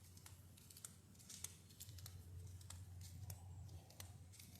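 Near silence, with faint scattered clicks and a low steady hum.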